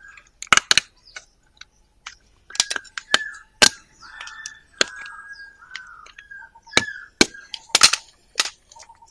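A screwdriver prying and cracking open the plastic cap seal of an engine oil bottle: a series of sharp, irregular clicks and cracks.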